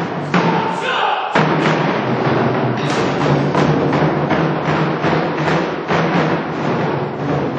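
Korean drum ensemble playing a fast, dense rhythm, with a brief thinner break about half a second in before the full ensemble comes back in at about a second and a half.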